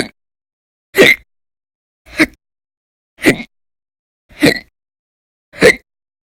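A woman's violent, very loud hiccups, each a short sharp gulp, coming at a steady rhythm of about one every 1.1 seconds, six in a row. They belong to a bout of persistent hiccups that goes on for hours.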